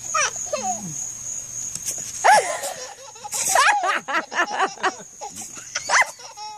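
People laughing with a baby's squeals, in several bursts from about two seconds in, over a steady high chirring of crickets.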